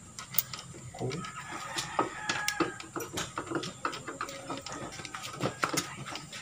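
Light, scattered metal clicks and clinks as a washer and small clutch parts are handled and slid onto the clutch shaft of an open motorcycle clutch.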